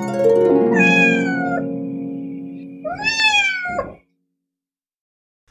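Intro music of held plucked-string notes dying away, with two cat meows about a second and three seconds in; the second meow rises and then falls. It stops suddenly at about four seconds.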